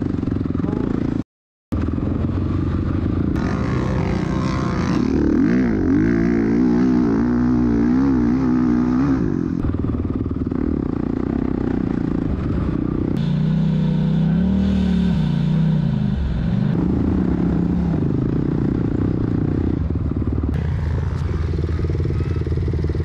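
Dirt bike engine running while riding, the revs rising and falling repeatedly, with wind noise over it. The sound cuts out completely for a moment about a second in.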